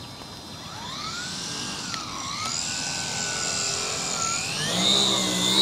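Electric motor and propeller of a giant radio-controlled airplane whining, the pitch rising, dipping and rising again. It gets steadily louder, with a lower buzz joining near the end.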